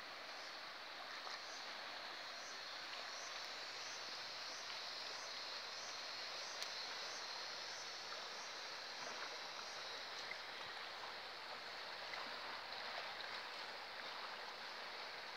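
Steady rushing of a swollen, fast-flowing river in flood, an even watery hiss with a few faint ticks.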